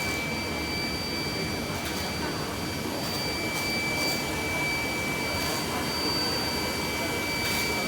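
Running machinery of a rubber extrusion and microwave vulcanization production line: a steady mechanical noise with a constant high-pitched whine, and a few short faint hisses over it.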